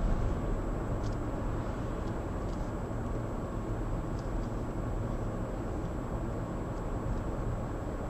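Steady road and engine noise of a car driving at highway speed, heard from inside the cabin, with a few faint light ticks.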